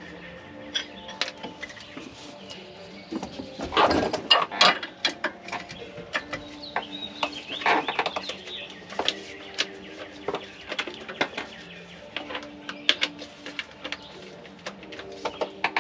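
Hand tools clinking and knocking against the metal of the rear shock mount and axle as a bolt is worked loose, the loudest knocks about four and eight seconds in, with intermittent bird calls in the background.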